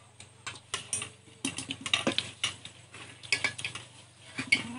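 Stainless steel plates and bowls clinking and scraping, a string of irregular light knocks, as food is served and eaten from them.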